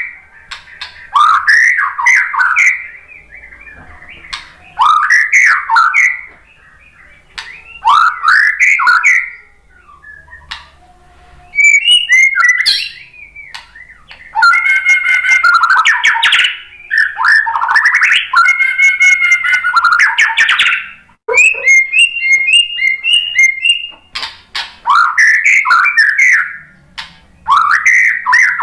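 White-rumped shama (murai batu) singing loudly: clear whistled phrases that sweep up and down, repeated every few seconds, with longer dense trilled and rattling passages in the middle and a quick run of repeated high notes after them.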